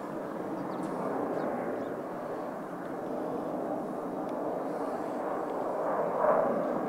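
Steady distant roar of a BAE Hawk T1 display jet flying high overhead, swelling briefly about six seconds in.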